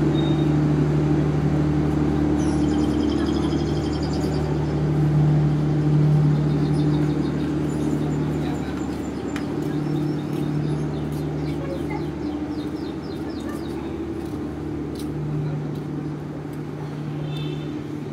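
A train's engine running with a steady low hum that slowly fades. Birds chirp faintly above it several times.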